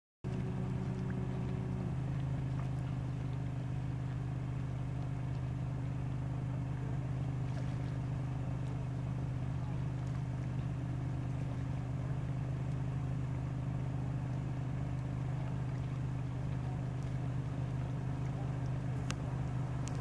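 An engine running steadily at an even speed, a low hum with a higher tone that drops out about two seconds in.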